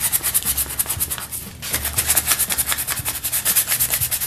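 Sandpaper rubbed quickly back and forth by hand over the rusty steel handle of a Millers Falls No. 120B breast drill, scouring off rust and corrosion. The rapid scratchy strokes pause briefly about a second and a half in, then resume.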